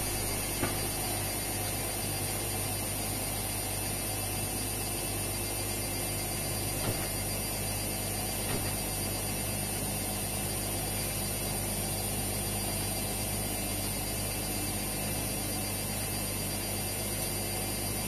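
Indesit front-loading washing machines running mid-cycle: a steady low hum with a few light clicks in the first half.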